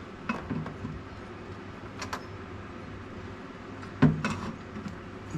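Clunks and knocks of a metal intake being fitted onto the engine: a few sharp knocks, the loudest about four seconds in, over a steady low hum.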